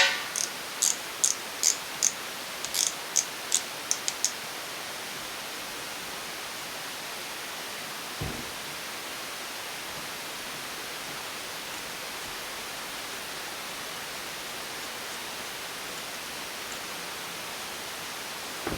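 A socket ratchet worked on a cylinder stud nut: a knock, then a run of sharp clicks, about three a second for some four seconds, as the ratchet is swung back and forth. A steady hiss fills the rest, with one faint thump near the middle.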